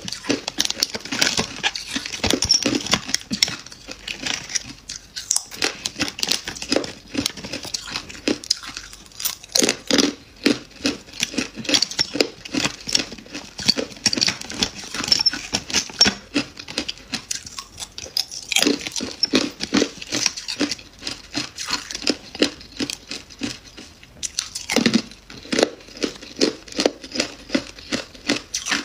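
Crunchy freezer frost and thin sheets of freezer ice being crushed and broken apart: a dense, unbroken run of sharp crackling crunches, several a second.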